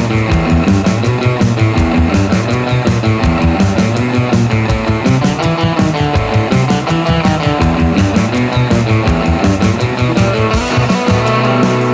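Rock music with electric guitar and drums, a steady driving beat.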